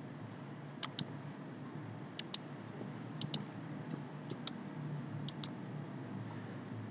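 Computer mouse clicking: five pairs of sharp clicks about a second apart.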